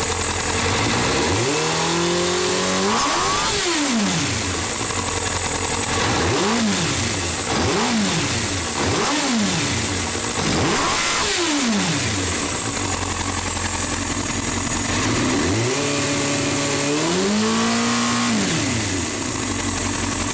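2001 Suzuki GSX-R750's inline-four engine running with the airbox off and the throttle-body intakes open, revved in a series of throttle blips. A held rev near the start, about five quick blips in the middle and a longer held rev near the end, dropping back toward idle in between.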